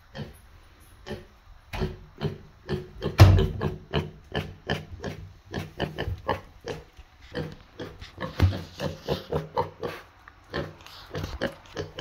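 Piglet grunting in a steady run of short grunts, about three a second, with a few sparser grunts in the first two seconds. The snout is right up against the microphone.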